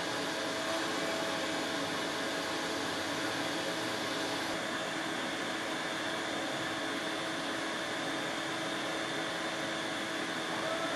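Steady whirring hiss and hum of a running fan or blower, with a faint steady tone under it.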